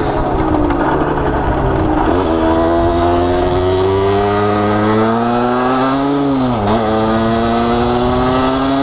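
Motorcycle engine heard from the rider's seat while riding. It falls in pitch for about two seconds, then pulls with the pitch slowly rising, dips briefly about six and a half seconds in, and then holds steady.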